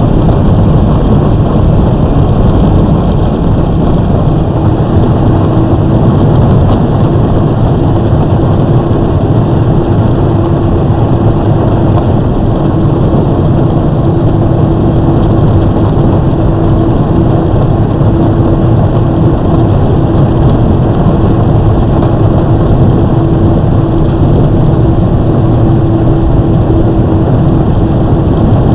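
Power Wheels battery ride-on toy car driving along a street: the plastic wheels give a steady rolling rumble on the asphalt, and a steady whine from the electric drive motor and gearbox sets in a few seconds in and stops near the end.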